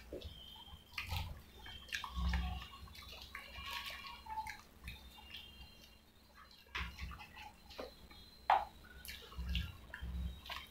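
Wet eating sounds, on and off: soaked medu vada squelching as it is broken up by hand in its wet accompaniment, with chewing and lip smacks.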